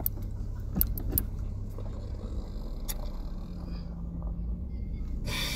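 Steady low engine and road rumble of a Chevrolet car heard from inside the cabin, with a couple of light clicks about a second in.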